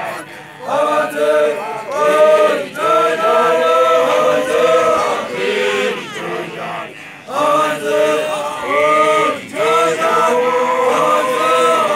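A group of voices chanting together in phrases, with short breaks between them.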